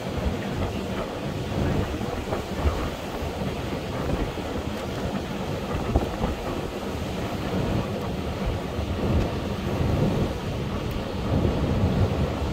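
Wind buffeting the microphone on a moving ferry's open deck: a low, rumbling rush that rises and falls in gusts.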